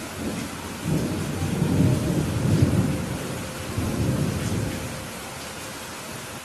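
Steady rain with a rolling rumble of thunder that comes in about a second in, swells twice and dies away after about five seconds.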